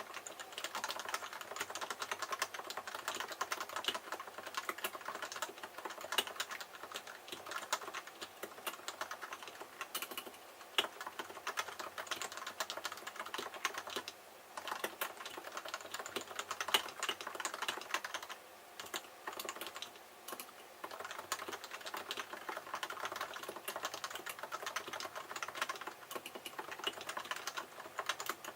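Typing on a Leopold FC660C Topre keyboard (electro-capacitive switches under 45 g rubber domes) with blank PBT keycaps and unlubricated sliders: a fast, continuous run of key presses with a couple of short pauses midway.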